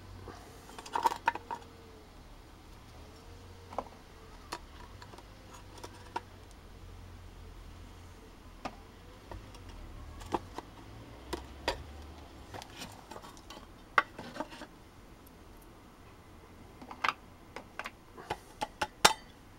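Hard resin orgonite castings knocking against a metal muffin tin and being set down on wooden slats: scattered sharp knocks and clinks, with a quick cluster about a second in and another near the end.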